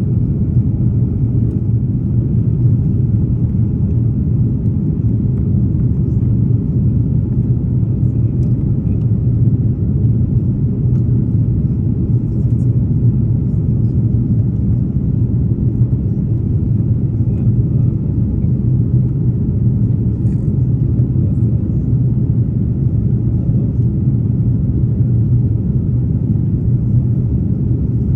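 Steady low rumble of Airbus A330neo cabin noise: the Rolls-Royce Trent 7000 engines and airflow, heard from inside the economy cabin. It stays even throughout.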